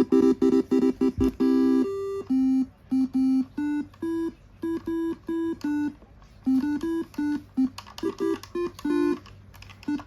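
Electronic multi-tone telolet bus horn (Basuri V3) playing a melody of short, quick honks, with several tones sounding together as a chord in the first two seconds and brief pauses between phrases.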